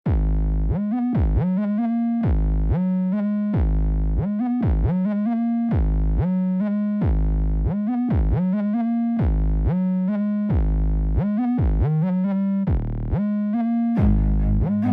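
Background electronic music: a synthesizer riff repeating a short pattern of notes over a pulsing, sliding bass. A fuller, noisier layer joins in near the end.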